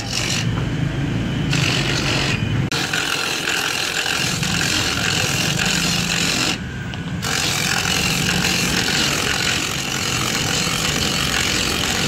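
Motorised coconut grater running with a steady grinding scrape as coconut halves are pressed against its spinning grater. The grinding drops out briefly twice, near three seconds in and for about half a second near seven seconds, as a coconut half is lifted off.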